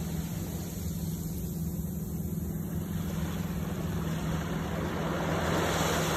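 Surf washing up a sandy beach over a steady low rumble; a wave's swash grows louder from about four seconds in as the water runs up over the sand.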